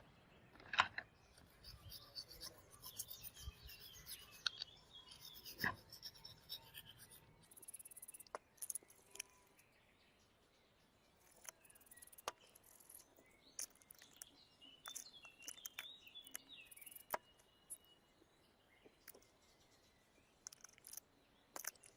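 Hand work on a small die-cast model car: scattered light clicks and taps of small parts and tools, with soft scratching in the first few seconds and one sharper knock about six seconds in.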